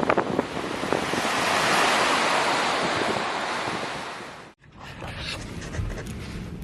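Lake waves surging and crashing in a gale, with strong wind buffeting the microphone. The wash swells to a peak about two seconds in, fades, and cuts off abruptly just past the middle, giving way to quieter wind and water.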